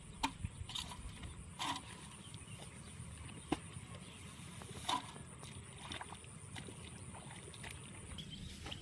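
Scattered wet splashes and sharp clicks of water and mud being worked in a flooded rice seedling bed, a few seconds apart, over a low steady rumble.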